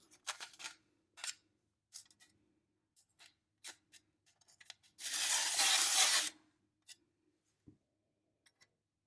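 Metal stylus ticking in the notched rim of an Adall disc adding machine a few times. About five seconds in, a louder scraping rattle lasts just over a second as the disc is swept round with the stylus, followed by a single light knock.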